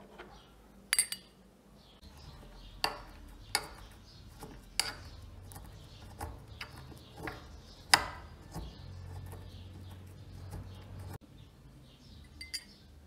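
Bronze mortar and pestle crushing nut pieces: irregular sharp metallic clinks and strikes as the pestle pounds against the bronze bowl, about eight over several seconds, the loudest about eight seconds in.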